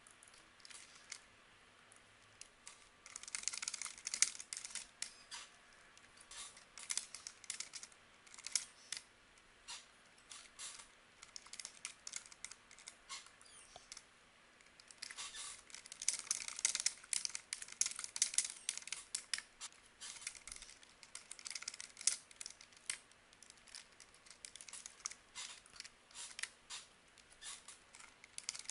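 Typing on a computer keyboard: fast runs of key clicks with short pauses between them, the busiest stretches starting about three seconds in and again about fifteen seconds in.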